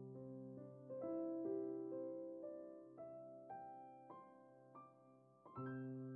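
Soft, slow piano music: single notes about twice a second over a held chord, then a new chord struck near the end that rings on and fades.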